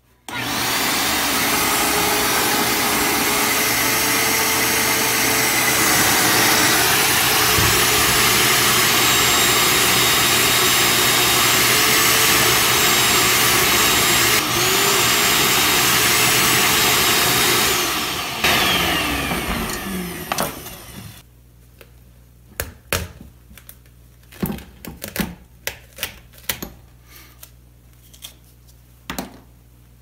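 Shop vacuum running steadily as its hose sucks up the aluminium grinding dust and metal shavings, then switched off about eighteen seconds in and winding down with a falling whine. After that, scattered light knocks and rustling as the masking towel is handled.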